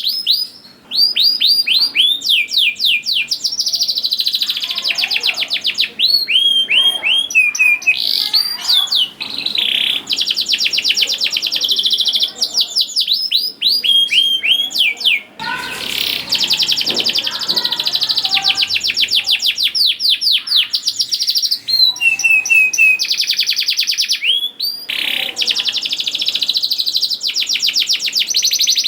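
Domestic canary singing vigorously: long rolls of very fast repeated high notes, broken by bursts of short upward-sweeping chirps. There is a brief pause about a second in and a short rougher, noisier stretch around the middle.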